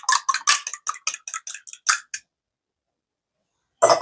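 Milk and eggs being beaten in a bowl, the utensil clicking against the bowl quickly and evenly, about six strokes a second. The beating stops about halfway through, and a brief clatter comes just before the end.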